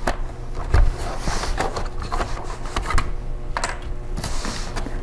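Handling of the Acer Aspire E5-574 laptop's plastic case: a run of irregular plastic clicks and knocks as it is lifted and set down on the bench mat, with a couple of brief rubbing scrapes.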